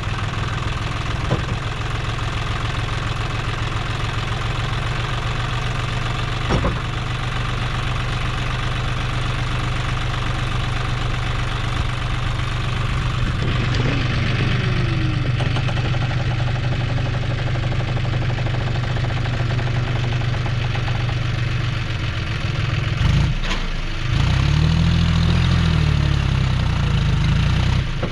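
John Deere 5050D tractor's three-cylinder diesel engine running steadily while tipping and moving a loaded trailer, with a few short knocks. Near the end the engine note changes and gets a little louder.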